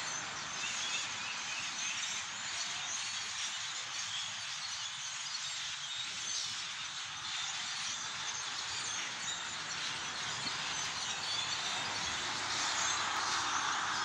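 A large flock of birds hidden in the trees, thousands of calls blending into one steady chatter that swells a little near the end.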